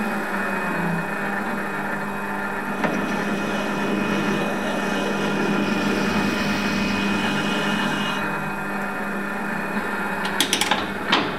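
Bernardo Profi 400 V three-phase metal lathe running with a steady whine, drilling into the spinning workpiece with a twist drill fed from the tailstock chuck. A few sharp clicks come near the end.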